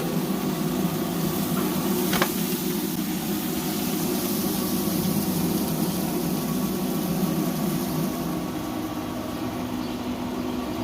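Steady mechanical hum with a few held tones, like a running fan or motor, with a single sharp click about two seconds in.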